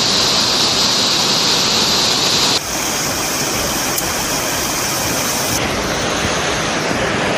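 Floodwater in a swollen river rushing over rock: a steady, loud noise of pouring water. Its character changes abruptly about two and a half seconds in and again about five and a half seconds in.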